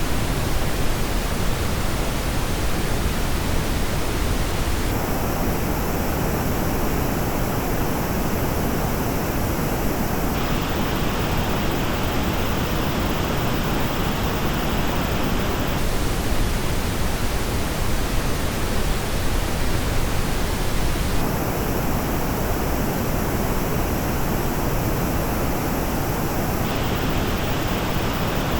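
Pink noise test signal played through Audeze planar-magnetic headphones, a steady full-range hiss. Its treble tone changes abruptly about every five and a half seconds as the playback switches between the LCD-X and MM-500 recordings.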